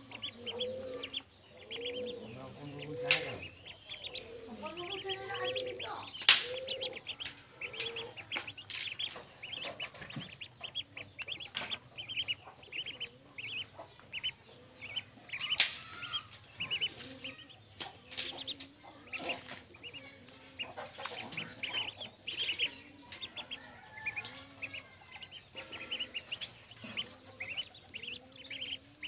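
Ducklings peeping rapidly and continuously while feeding, with scattered sharp taps of bills on the steel food bowl, the loudest about three, six and fifteen seconds in. A lower clucking call repeats through the first several seconds.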